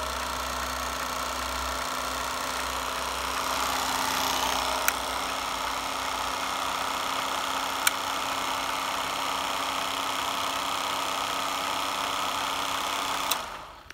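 Siemens 2000 16mm cine projector running, its motor and cooling fans giving a steady whir with a low hum. Two sharp clicks of its controls about three seconds apart, then a click near the end as it is switched off and the running stops.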